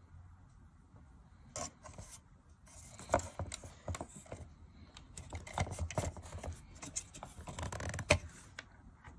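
A Victure 1080P pan-tilt security camera being handled and turned by hand: a run of irregular scrapes and clicks from its plastic housing and pan-tilt gears. It starts about one and a half seconds in, with a sharp click near the end.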